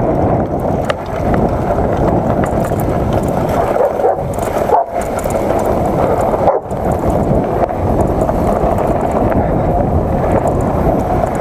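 Mountain bike riding fast over a dirt and grass trail: steady rolling noise of the tyres with the rattle of the bike, and wind rushing on the rider-mounted camera's microphone. The sound cuts out briefly twice near the middle.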